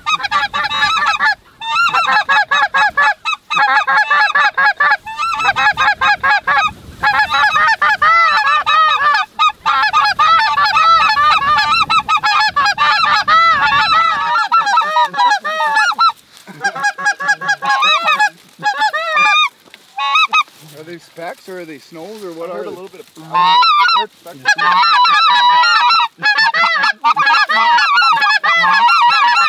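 Hunters' specklebelly (white-fronted goose) calls blown loud and nonstop, many overlapping calls with quick rising-and-falling pitch, mixed with the geese of the flock they are working. The calling thins out briefly a little past the two-thirds mark, then comes back at full strength.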